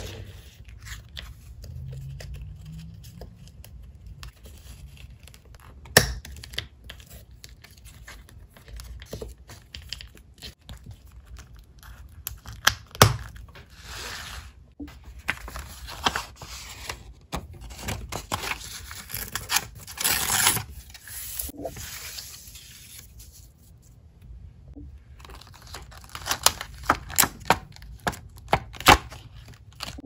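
Paper being handled and torn by hand, with rustling and crinkling, the longest tearing stretches in the middle and latter part. Scattered sharp clicks and taps, with a quick run of them near the end.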